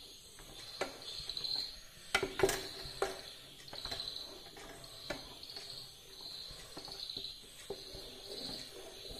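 Wooden spatula stirring thick jackfruit pulp and jaggery syrup in a metal pan, with several sharp knocks and scrapes against the pan; the loudest come about two and a half seconds in. A high chirp pulses steadily in the background, about once a second.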